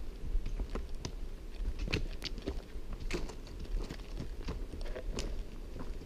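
Hiking boots crunching and scuffing down a rocky, gravelly dirt trail, with irregular sharp clicks of trekking-pole tips striking the ground, a few a second.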